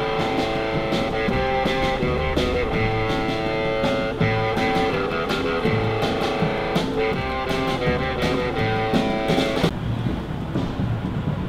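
Rock music with guitar and a steady drum beat, cutting off suddenly near the end to steady street traffic noise.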